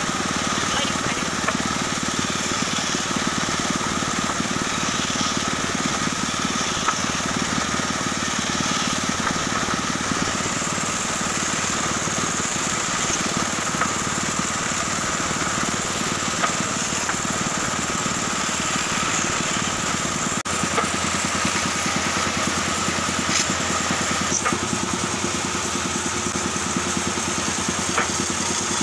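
Bandsaw running steadily while its blade cuts small wooden blocks: a constant motor and blade hum with a steady whine. About two-thirds through, the sound shifts abruptly, and steady machine noise carries on after it.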